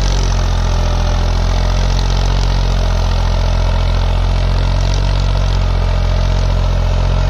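New Holland 3600 tractor's diesel engine running steadily under load while pulling a mounted tine cultivator through tilled soil, holding an even speed without bogging.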